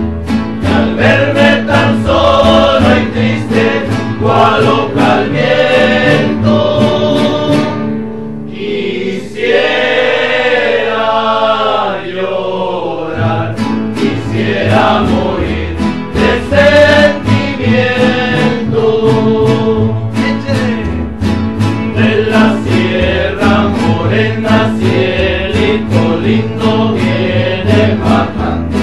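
Rondalla performing: several acoustic guitars strummed in a steady rhythm over a double bass, with a group of men's voices singing together. About eight seconds in, the strumming drops out for some four seconds while the voices hold a sung line, then it picks up again.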